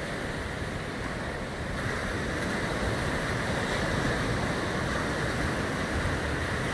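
Small surf breaking and washing up a sandy beach: a steady rushing wash that swells slightly about two seconds in.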